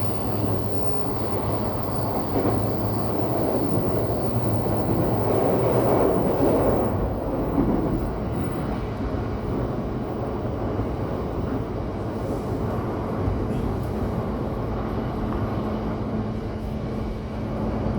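Yokosuka Line electric train running along the track: a steady rumble of wheels and running gear, swelling a little about six seconds in.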